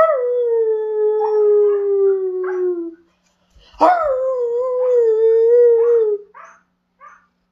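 Husky howling: two long howls, the first about three seconds long and slowly falling in pitch, the second starting a second later with a quick upward swoop and then wavering.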